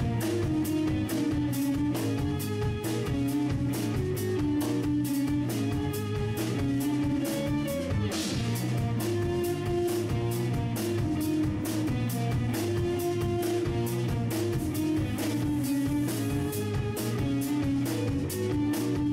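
Instrumental progressive rock music: guitars over a drum kit keeping a steady beat.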